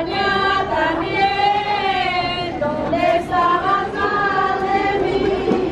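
Women's and children's voices singing a religious hymn together, one slow melody in long held notes.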